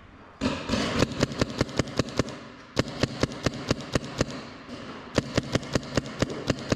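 Paintball markers firing rapid strings of shots, about five a second, in three bursts with short pauses between.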